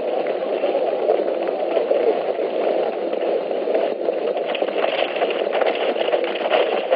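Film battle-scene sound: a steady, dense din of running and fighting men, with sharp clatters becoming more frequent from about four seconds in.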